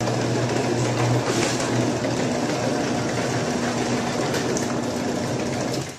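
Craftsman half-horsepower garage door opener running, a steady motor hum with rattling noise as the door travels, dying down just before the end.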